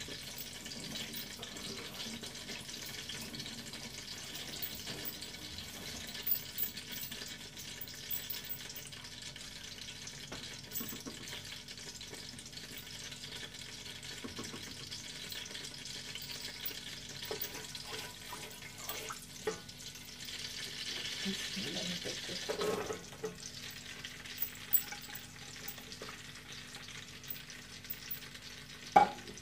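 Sliced onions frying in hot oil in a large aluminium pot: a steady sizzle, with scattered knocks and scrapes from a wooden spatula stirring them.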